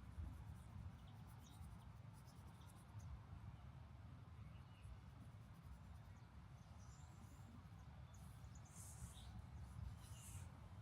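Near silence: a faint low rumble of wind, with a few faint, short bird chirps in the second half.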